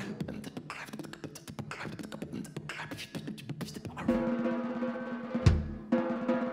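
A live band of electric guitar, keyboard, double bass and drum kit playing. Quick drum and cymbal strokes come first, then about four seconds in a chord is held over a few heavy kick-drum hits.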